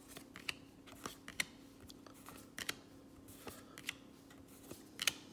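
Baseball trading cards being handled and flipped through by hand: soft, irregular clicks and slides of card stock, with a couple of sharper clicks about five seconds in.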